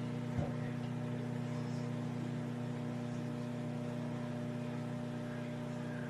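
Midea 20-litre mechanical microwave oven running: a steady hum from its magnetron and fan, with one brief knock about half a second in.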